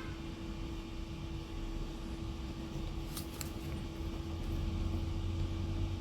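Room background: a steady low hum with a faint constant tone, and two faint clicks a little after three seconds in.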